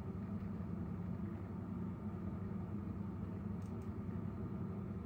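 A steady low hum of room background noise, with one faint click about three-quarters of the way through.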